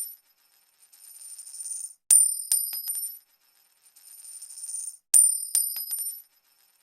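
A coin dropped onto a hard surface, striking with a bright metallic ring and bouncing a few times before it settles. The drop comes twice, about three seconds apart, each one led in by a short rattle that grows louder.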